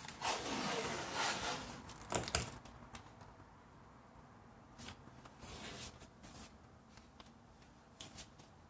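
Masking tape pulled off the roll and torn, a rasping rip over the first two and a half seconds, followed by faint scattered clicks and rustles of handling.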